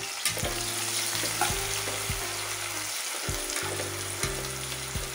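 Sliced onions sizzling steadily in hot oil in an aluminium pressure cooker, stirred with a metal slotted spoon, as they are fried toward golden brown.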